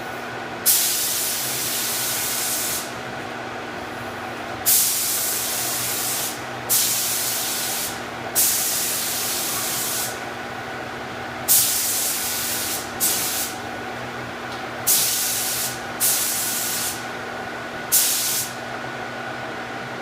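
Paint spray gun laying on epoxy primer in repeated passes: about nine bursts of spray, each starting sharply as the trigger is pulled and lasting from half a second to two seconds, heard close up from the gun itself. A steady machine hum runs underneath.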